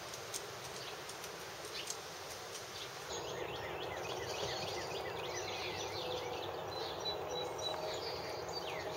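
Outdoor ambience with a steady hiss. About three seconds in it grows louder, and small birds chirp repeatedly in quick, short, falling notes.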